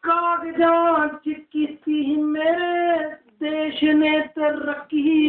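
A single voice singing unaccompanied, in short phrases with long held notes and brief silent breaths between them.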